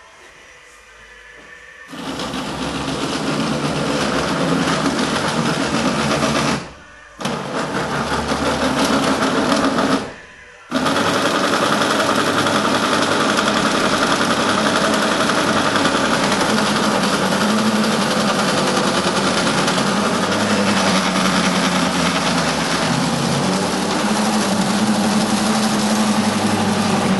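Electric drive motor and gearing of an LGB garden-scale model tram whirring steadily as it runs along the track, its wheels rumbling on the rails. The sound sets in about two seconds in and cuts out twice for under a second.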